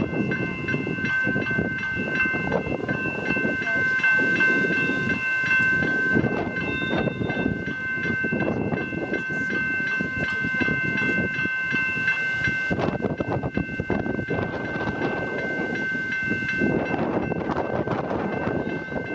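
Level crossing warning bells ringing steadily as the crossing activates, over a loud uneven rumbling noise. One of the bell tones drops out near the end.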